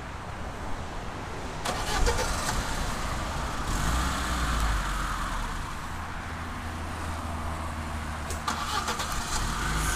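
Lada Niva 4x4 driving slowly over icy frozen ground, its engine running with a rise in revs about two seconds in and again around four seconds in, tyres rolling over the ice.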